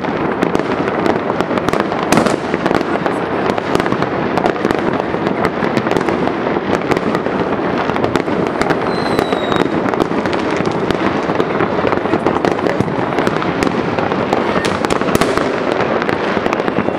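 Many fireworks going off at once across a city: a continuous dense mass of bangs, pops and crackles. A brief high whistle comes about nine seconds in.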